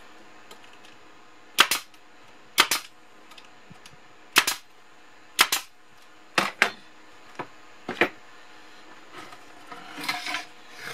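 Brad nailer driving short brads into the wooden sides of an OSB tray, a series of sharp snaps about once a second, some with a quick second snap. Near the end the tray is picked up and handled, a brief rustle and knock of wood.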